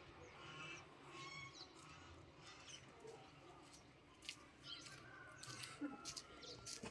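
Kittens mewing faintly: a string of short, high-pitched cries about once a second.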